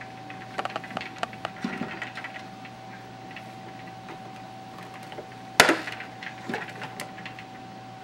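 Hard objects being knocked and handled: a run of light clicks and taps, then one loud sharp knock about five and a half seconds in, followed by a few lighter taps. A faint steady hum runs underneath.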